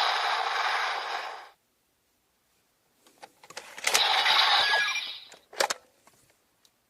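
Electronic sound effects from the DX Shining Hopper toy: a loud hissing effect cuts off about a second and a half in. After a pause come a few clicks, a second short hissing burst, and a couple of sharp cracks.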